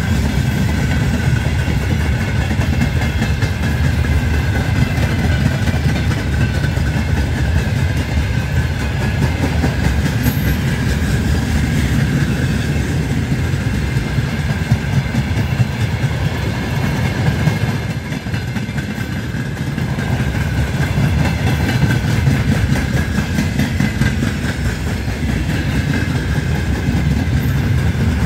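Freight train rolling past at close range: a steady low rumble of steel wheels on the rails as a string of boxcars, open gondolas and tank cars goes by. It is briefly a little quieter about eighteen seconds in.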